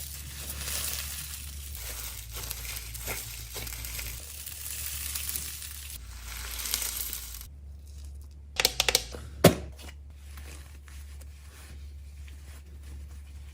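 Fidget toys being handled, with crinkling and crackling in several short stretches, then a quick run of sharp clicks and one louder snap about nine seconds in.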